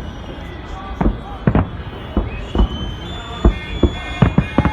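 Festive fireworks salute: shells bursting in an irregular series of sharp bangs, about a dozen in under five seconds, coming faster toward the end.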